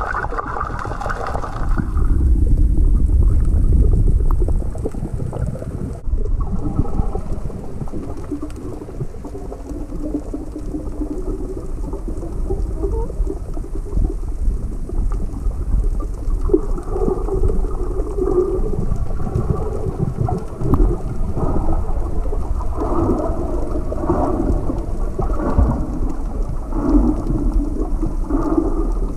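Muffled underwater rumble and water noise picked up by an action camera held underwater, with a stronger low rumble about two to four seconds in.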